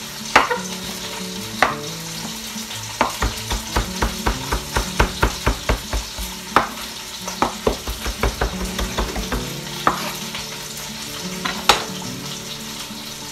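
Chef's knife chopping fresh parsley on a wooden cutting board: a quick run of knocks, about three a second, from about three seconds in to near ten seconds, with a few single chops before and after. Underneath, a steady sizzle from a beef chuck roast searing in oil in an enameled cast-iron Dutch oven.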